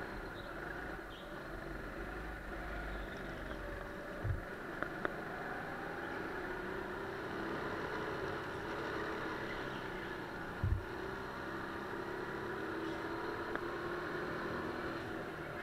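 Sodi GT5R rental kart's 200 cc Honda single-cylinder four-stroke engine running under way, its pitch rising and falling with the throttle, over tyre and wind noise. Two short low thumps, about four and eleven seconds in.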